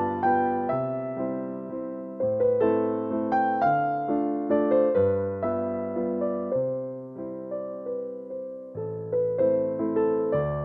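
Background music: a slow, gentle piano piece, single melody notes over low chords that change every second or two.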